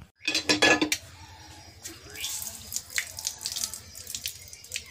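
Tap water running and splashing as someone washes up, loudest in the first second.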